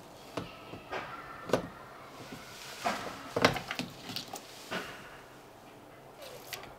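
Scattered metallic clicks and knocks of a 12 mm socket on an extension bar being fitted to a battery nut in a car's engine bay. The socket does not fit, and the loudest knock comes about three and a half seconds in.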